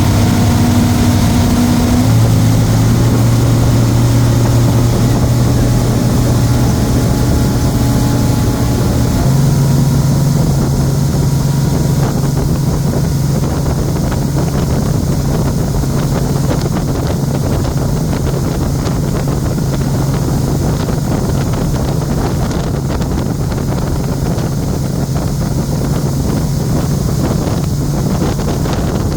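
Motorboat engine running, its pitch stepping up twice as the boat picks up speed, with wind buffeting the microphone.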